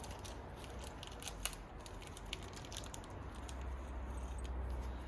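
Light metallic clicking and jangling of a 12-speed bicycle chain being handled while a split link is fitted into its ends. A low rumble builds in the second half.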